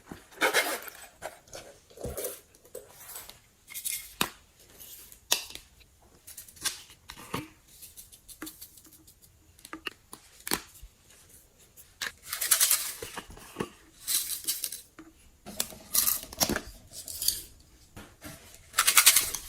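Slime being played with by hand: irregular sharp clicks, pops and short crackly bursts, with denser runs of crackling about two-thirds of the way through and again near the end.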